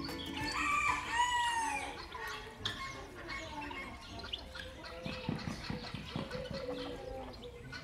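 Chickens in a coop: a rooster crows once, about a second in, followed by scattered clucking and shorter calls.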